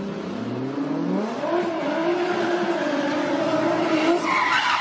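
A car engine revving up, its pitch rising and then holding steady. Near the end, tyres begin to squeal.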